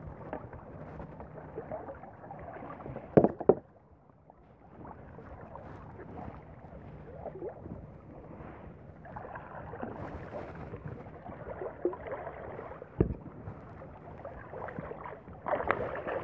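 Water sloshing and gurgling against the side of a kayak as a caught fish is released over the side, with two loud sharp hits about three seconds in and another about thirteen seconds in.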